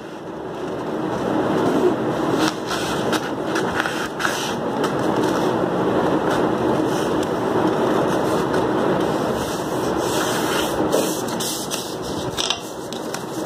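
Craft paper being folded and creased by hand on a table: a steady rustling and rubbing of the sheet under the palms, with occasional sharper crinkles and taps.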